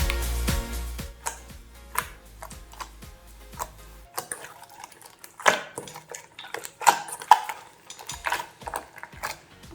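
Background music for the first few seconds, then scattered clinks and scrapes of a utensil against a bowl, as when stirring slime ingredients.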